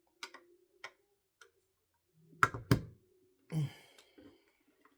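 Plastic Lego pieces clicking as they are handled, then two sharp snaps close together as tight-fitting pieces are pressed home about two and a half seconds in, followed by a short exhale.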